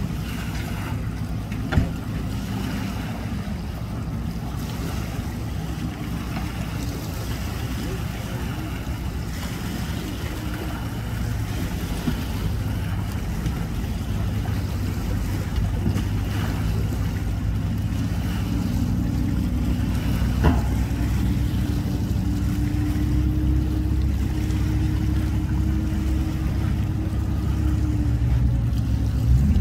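Mercury outboard motor on a bass boat running at low idle, a steady low engine note that grows a little louder in the last third. A sharp click sounds about two seconds in and another about two-thirds of the way through.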